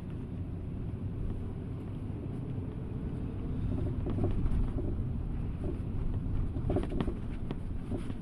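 Vehicle running with a steady low rumble and a few short, sharp knocks near the end: the knock the recording was made to capture.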